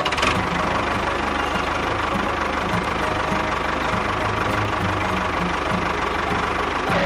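A small motor running steadily, with a rapid low pulsing.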